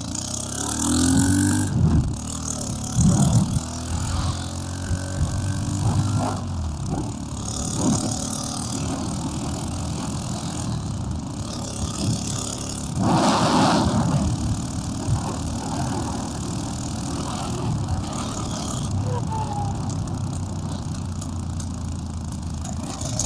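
Motorcycle riding along, its engine running under wind noise on the microphone, with a louder rush of wind or a passing vehicle about 13 seconds in.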